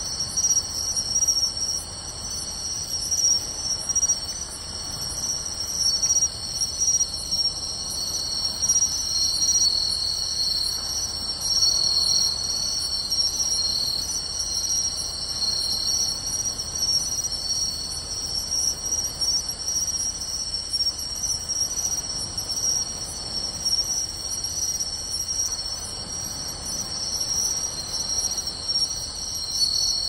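A dense chorus of night-singing crickets, including matsumushi (pine cricket) and suzumushi (bell cricket). Many overlapping high-pitched trills and chirps hold steady at several distinct pitches.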